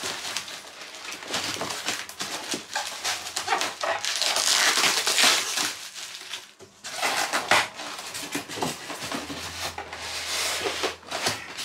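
Styrofoam packing blocks squeaking and plastic wrap crinkling as the packaging is handled and pulled out of a cardboard box, in dense, irregular crackling with a short pause about two-thirds of the way in.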